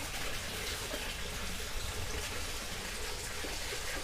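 Steady running, trickling water in an aquarium sump tank.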